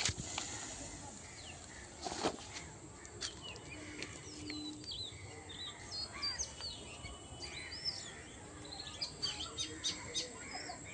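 Small birds chirping and twittering in quick, high, gliding notes, thickest in the middle. There is a sharp knock at the start, another about two seconds in, and a run of clicks near the end.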